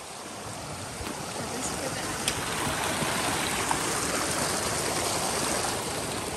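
Mountain creek rushing over rocks, getting louder toward the middle and dropping off near the end as the log footbridge is crossed, with a few light knocks of boots on the log.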